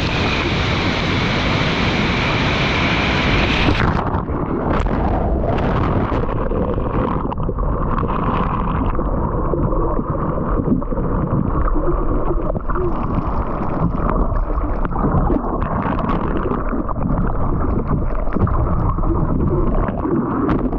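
Loud rush of breaking surf and wind on the microphone, which about four seconds in turns abruptly muffled as the camera goes underwater. It is followed by dull churning and rumbling of whitewater heard from below the surface as a wave holds the surfer down.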